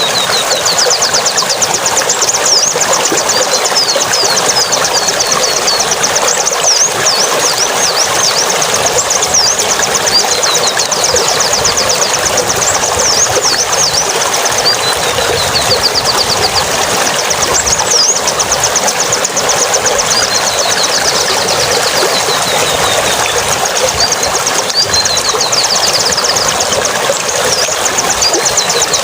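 Rapid high-pitched bird chattering and trills over a steady rush of running, gurgling water, typical of the water-and-birdsong audio played to a moulting caged shrike as therapy.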